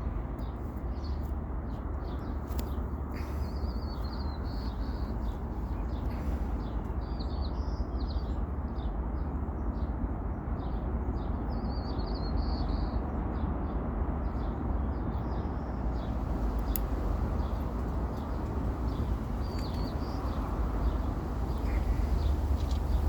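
Small songbirds chirping in short warbling phrases, several times, over a steady low rumble, with a few faint clicks.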